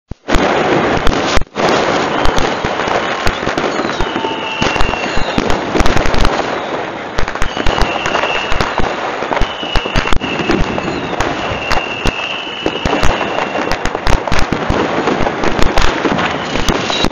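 Many fireworks going off at once: dense crackling and popping with sharp bangs throughout. Several high whistles of about a second each rise over it, from about four seconds in onward.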